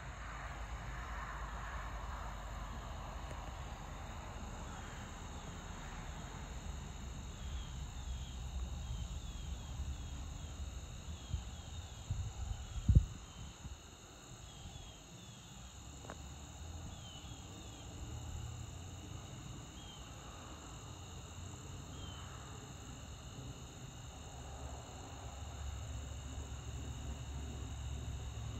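Steady evening chorus of crickets and other insects, a continuous high trill, over a low rumble. A single sharp thump about halfway through.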